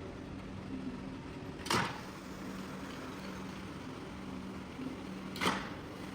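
Rug-cleaning work: a steady low machine hum with two short, sharp swishing strokes almost four seconds apart.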